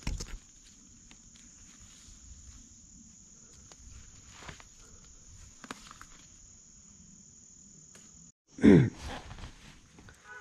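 Steady high-pitched buzzing of a summer insect chorus in woodland, with rustling steps and a few light knocks from moving through the brush and a thump at the very start. Near the end the sound cuts off abruptly and a short, loud, falling-pitched voice sound follows.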